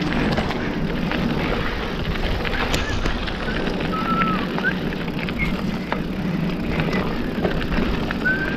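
Mountain bike rolling down a dirt trail: tyre noise over dirt and rocks with the bike rattling, and a few brief high squeaks.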